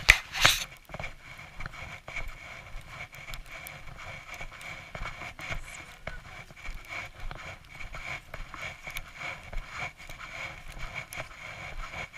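Footsteps crunching in packed snow, several walkers in an uneven rhythm, with two sharp loud knocks right at the start.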